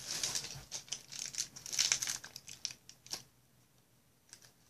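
Plastic wrapping crinkling and rustling as it is handled, in quick bursts that stop about three seconds in.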